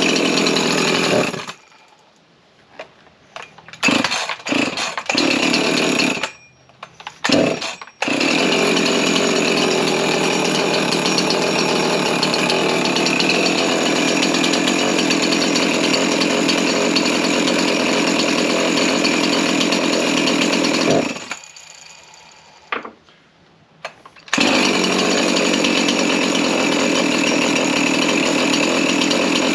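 Freshly rebuilt Husqvarna 353 two-stroke chainsaw engine running, dying out about a second and a half in, catching in a few short spurts, then running steadily. It dies again about two-thirds of the way through and starts back up a few seconds later. The stalling is a sign that the rebuilt saw is not yet running right and is still being adjusted.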